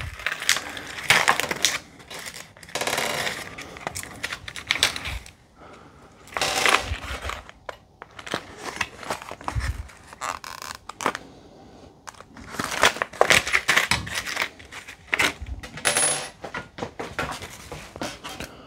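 Small metal assembly screws and washers clinking and rattling as they are picked through by hand, in irregular clusters of short clatters.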